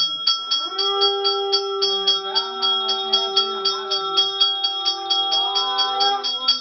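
Temple aarti bell ringing in a fast, even rhythm of about five strikes a second. Over it a voice holds one long chanted note for about five seconds, sliding up into it near the start and bending away near the end.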